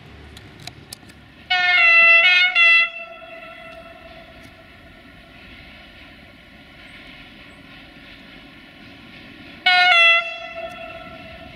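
Horn of an approaching class 480 (Softronic Transmontana) electric locomotive: two short blasts close together, then a third near the end, each leaving a fading tone behind it, over the steady rumble of the oncoming train.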